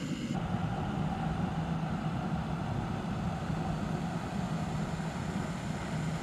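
Jetboil canister-gas stove burning steadily, heating water for coffee: a constant rushing hiss with a steady low hum.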